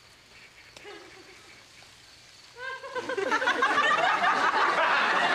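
A quiet stretch, then sitcom studio audience laughter breaks out about three seconds in and keeps going loudly.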